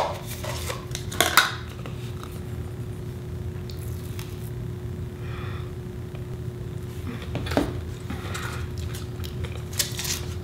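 Metal knife scraping and clicking against a plastic peanut butter tub and its lid: a few sharp clicks and scrapes over a steady low hum.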